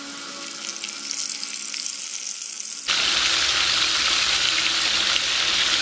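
Frozen seekh kebabs sizzling as they fry in hot oil in a frying pan. The sizzle jumps to a louder, fuller hiss about three seconds in, when the pan holds several kebabs.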